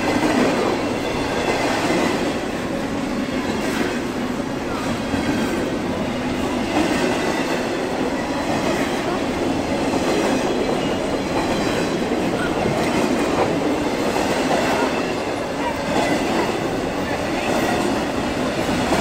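CSX intermodal freight train's double-stacked container cars rolling past close by at a level crossing: a steady rumble and clatter of steel wheels on the rails.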